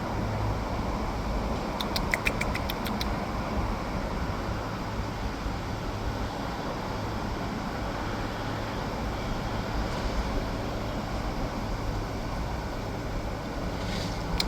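Steady low mechanical hum, like background traffic or an idling engine, with a brief run of rapid high ticks about two seconds in.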